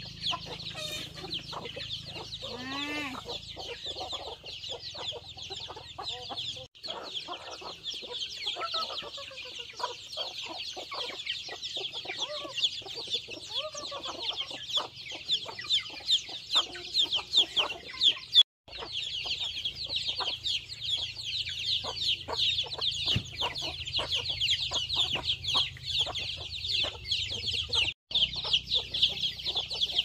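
A flock of chickens: many chicks peeping in a continuous high chorus, with hens clucking underneath.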